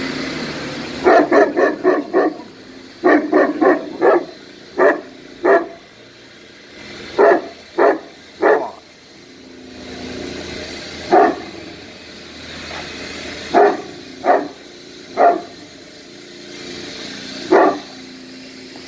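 Caucasian Shepherd dog barking, about twenty barks in all: two quick runs of four or five in the first few seconds, then single barks and pairs with pauses between.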